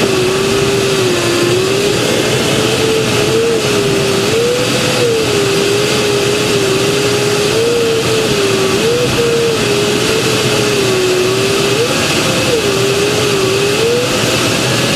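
Glider cockpit in flight: a steady rush of airflow over the canopy, with the audio variometer's single tone wavering up and down in pitch as the lift changes.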